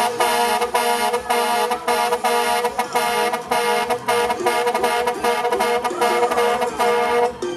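Dump truck air horns blown in a fast, chopped rhythm, several steady horn tones sounding together in quick blasts.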